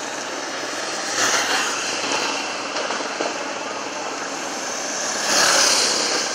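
Steady engine noise of motor vehicles, swelling briefly about a second in and again near the end, as motorcycles approach along the street.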